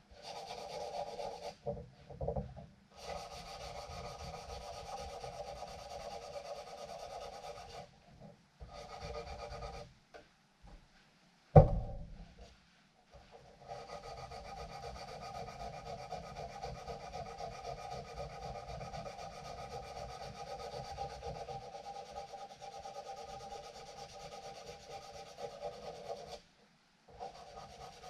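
Steel of a knife being shaped with an abrasive tool, a steady rasping in runs of several seconds broken by short pauses. A single sharp knock comes near the middle.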